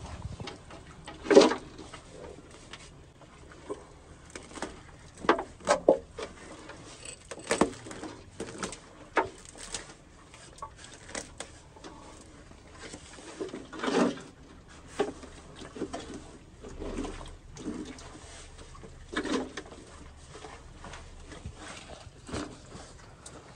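Gloved hands pulling a matted mass of tree roots and sludge out of a blocked drain at the bottom of a brick manhole, with irregular scrapes, rustles and knocks every second or few, heard down the shaft.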